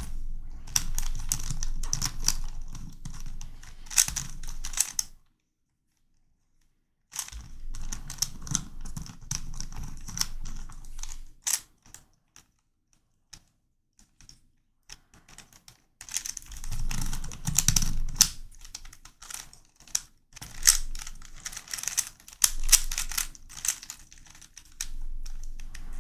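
Non-magnetic YuXin Corner Helicopter 2x2 puzzle being turned in a solve: its plastic pieces click and clack in quick runs of turns. It falls silent around five seconds in, and between about twelve and sixteen seconds only a few scattered clicks come while the solver pauses.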